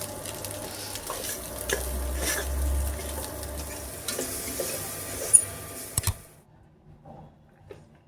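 Spoon stirring food in a sizzling pan, with sharp clinks of metal on the pan, the loudest about five seconds in. The sizzle and stirring cut off suddenly about six seconds in.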